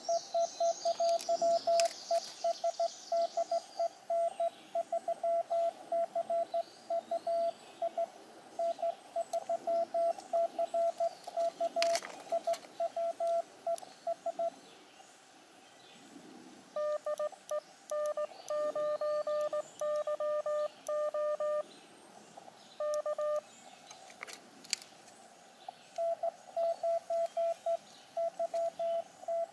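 Morse code (CW) beeping from an Elecraft KX2 transceiver. A CQ call is keyed in a steady tone for about the first fourteen seconds. After a short pause, a slightly lower tone from an answering station keys for several seconds, and the higher tone keys again near the end.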